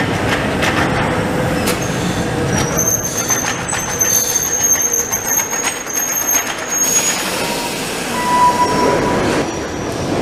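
Paris Métro train pulling out of the station and running away down the tunnel: a rumble with repeated clicks from the wheels. A high, thin wheel squeal sounds from about two and a half seconds in to about seven seconds, and the rumble fades as the train leaves.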